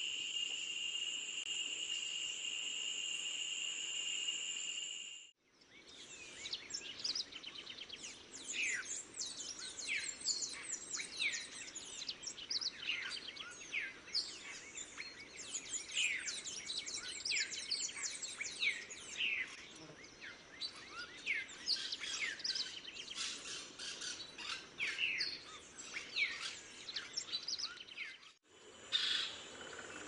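A steady, shrill insect buzz for about five seconds, cutting off suddenly. Then a dense run of quick, overlapping chirping bird calls, many short sweeps in pitch, until it cuts off again near the end.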